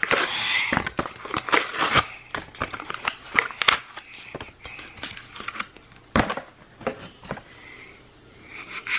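Irregular clicks, taps and rustling close to the microphone; no air horn sounds.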